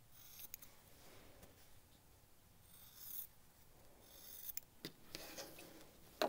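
Scissors snipping through layered cotton quilting fabric in a few quiet cuts, trimming the excess corner a quarter inch from the stitched line. A light knock or two near the end.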